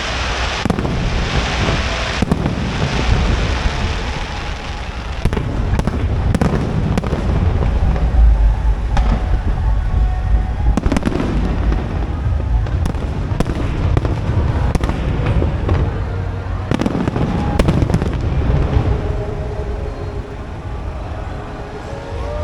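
Aerial fireworks going off in a dense barrage: many sharp bangs and crackles over a continuous low rumble of booms, easing off slightly near the end.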